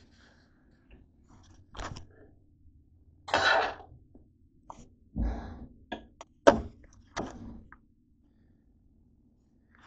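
Handling noise: a few knocks and a dull thud as a camera is moved about and set down on a wooden table, with a short breathy noise from the person about three seconds in.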